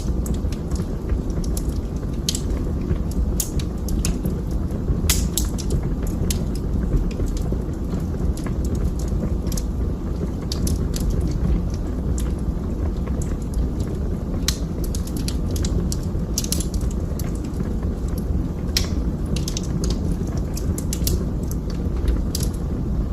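Wood fire burning in a fireplace: a steady low rush of flames with frequent, irregular sharp crackles and pops.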